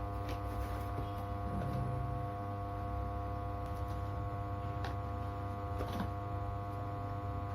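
Steady electrical mains hum, with a few faint clicks and scrapes from a cardboard box being worked open, two of them about a second apart in the second half.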